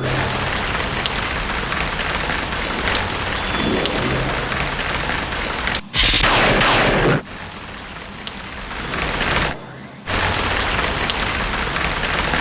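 Steady heavy rain with one loud thunderclap about six seconds in, lasting about a second. The rain cuts out briefly about ten seconds in.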